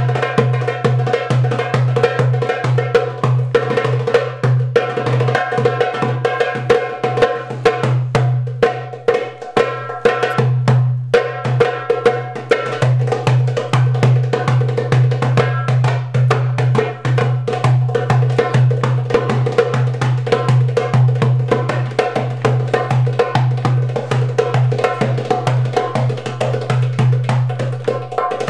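Rope-tuned djembe played with bare hands in fast, dense rhythmic patterns of slaps and tones, many strokes a second, over a steady low hum underneath.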